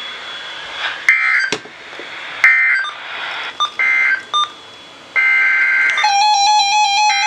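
Emergency Alert System digital data bursts from a weather radio: short, harsh, buzzing electronic screeches repeated a few times, the end-of-message signal that closes the flash flood warning. About six seconds in, a steady electronic tone pattern starts.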